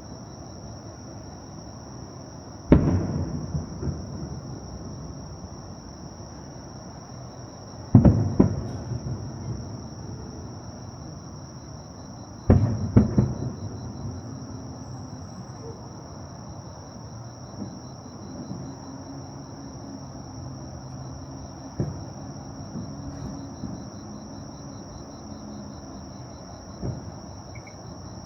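Fireworks bursting: three loud booms about five seconds apart, each trailing off in crackling and rumbling echo, then two fainter pops later on. A steady high insect trill runs underneath.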